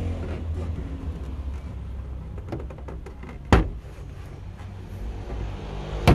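Two sharp knocks on a Suzuki APV's rear door trim panel as a hand works the door, one about halfway through and one at the very end, with a few lighter clicks just before the first. A vehicle engine idles underneath.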